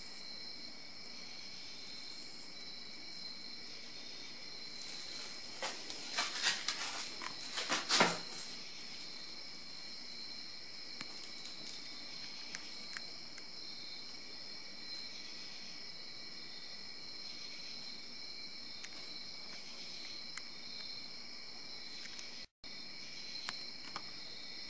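Steady, high-pitched night chorus of crickets. Between about six and eight seconds in comes a short spell of crinkling rustle from the thin plastic bag of a homemade hot air balloon being handled.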